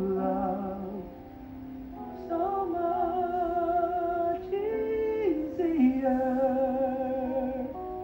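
Instrumental accompaniment playing the closing bars of a musical-theatre ballad: soft held chords that change every second or so, with a wavering melody line above them.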